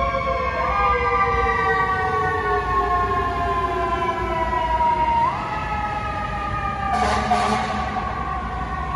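FDNY fire truck siren wailing, its pitch falling slowly and then jumping back up, once shortly after the start and again about five seconds in. A short burst of hiss comes about seven seconds in, over a low road rumble.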